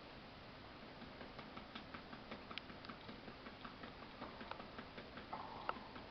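Faint, quick light taps, several a second and unevenly spaced, beginning about a second in.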